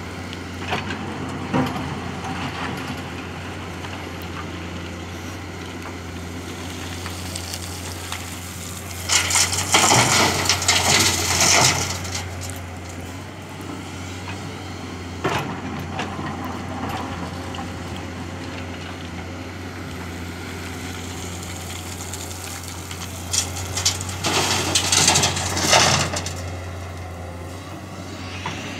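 Komatsu hydraulic excavator engine running steadily. Twice, about nine seconds in and again near the end, a bucket load of sand and stones pours into the tipper truck's steel body, a loud rattling rush lasting two to three seconds each time.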